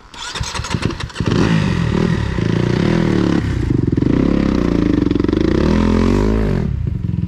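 Dirt bike engine revved hard under load as the bike is ridden through a deep rut, its pitch rising and falling repeatedly, then settling back to a lower, steady running near the end.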